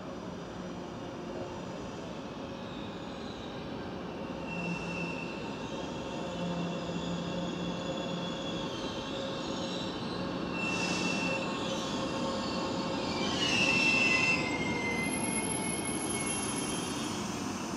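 ED250 Pendolino electric train arriving and braking to a stop, its rumble growing louder as it draws in. High-pitched squeals come several times as it brakes, loudest about three-quarters of the way through, the last one sliding down in pitch.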